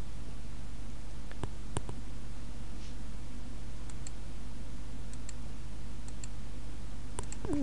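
Computer mouse clicks and scroll-wheel ticks, a handful of scattered sharp clicks, some in quick pairs, over a steady low hum.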